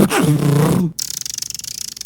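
Beatboxer's mouth sound effects: a low, pitched vocal buzz that cuts off about a second in. Then comes a hiss with fast, even clicks, his imitation of a bicycle chain and freewheel ticking.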